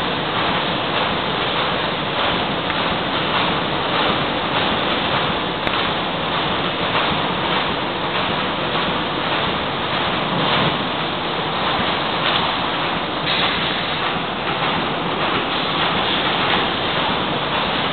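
Welded wire mesh production machine running: a steady, dense industrial din with no distinct strokes standing out.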